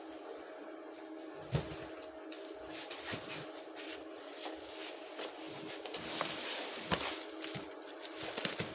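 Scattered clicks, knocks and rustles of things being handled, over a steady electrical-sounding hum.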